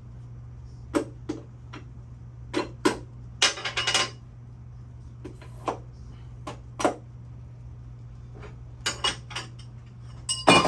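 Metal tools and engine parts clinking and clattering as they are handled, in scattered sharp knocks with a few quick flurries, over a steady low hum.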